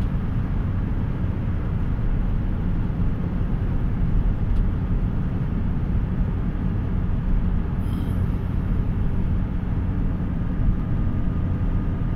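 Steady road noise of a car cruising at highway speed, heard from inside the cabin: tyre and engine noise, heaviest in the low end and unchanging throughout.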